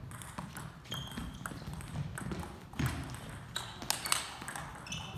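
Table tennis rally: the ball clicking off the paddles and bouncing on the table, a series of sharp clicks at an uneven pace.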